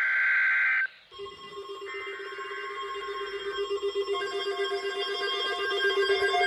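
Weather radio alert signals: a shrill two-tone digital data burst ends just under a second in, then after a short gap a steady electronic alarm tone with a rapid flutter sounds. This is the alert signal that opens a severe weather bulletin.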